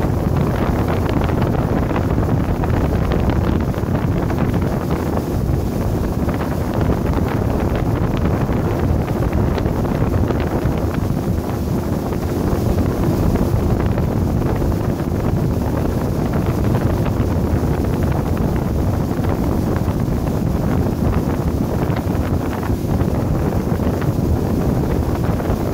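Steady wind buffeting the microphone of a boat under way at speed, with the boat's motor running as a low, even drone underneath.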